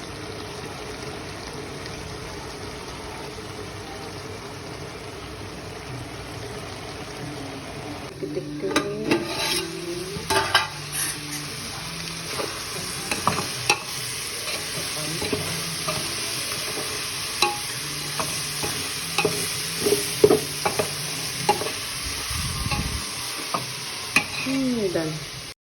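Banana flower and chicken intestine sizzling in a pan, a steady hiss, with a spatula scraping and stirring in irregular strokes from about eight seconds in.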